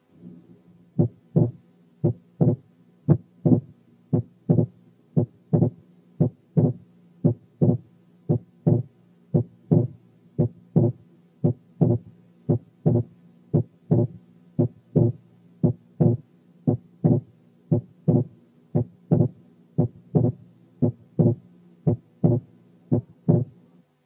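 Recorded heart sounds from a stethoscope, a steady rhythm of thuds about two a second, demonstrating wide but variable splitting of the second heart sound, as in right bundle branch block.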